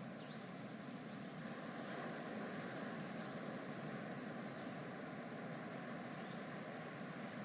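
Steady, even rushing noise of beach ambience, with no distinct events.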